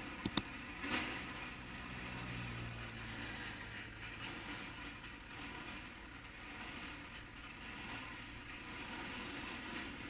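Engine of a pile-driving rig running steadily at a distance, with two sharp clicks in quick succession near the start.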